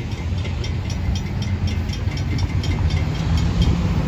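Railroad grade-crossing warning bell ringing in quick, evenly spaced strokes as the gates rise, stopping about three and a half seconds in. Under it is the low rumble of cars pulling across the tracks.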